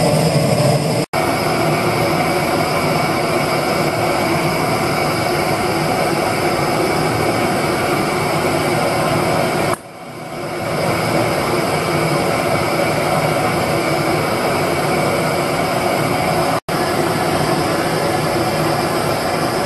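Butane torch burning steadily into a small homemade perlite-lined furnace, a loud, even rush of flame as it melts scrap aluminium. The sound drops out for an instant about a second in and again near the end, and dips briefly about halfway before building back.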